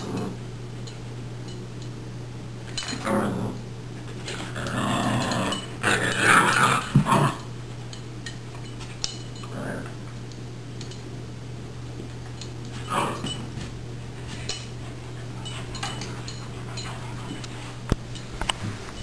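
An Australian Cattle Dog and a Boxer puppy play-fighting, growling in bouts. The growling is loudest from about four to seven seconds in, with shorter bursts about three and thirteen seconds in.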